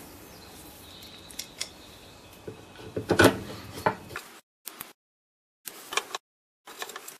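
Small clicks and scrapes of a Phillips screwdriver turning screws into a Briggs & Stratton primer carburetor on its fuel tank, the screws going in loosely one at a time.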